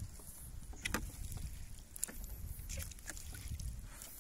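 Fishing net being hauled out of the water over the side of a boat: water dripping and splashing off the mesh, with a few short sharp ticks about a second in and around two seconds in, over a low steady rumble.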